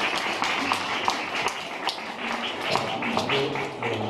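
Audience applauding: a dense patter of many hand claps that thins out near the end.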